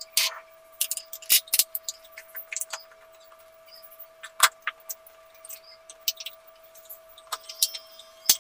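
Scattered sharp clicks and knocks of hard plastic as an RO/DI water filter unit's white filter housings and tubing are handled and turned. They are thickest at the start and near the end, with one loud knock about halfway, over a faint steady hum.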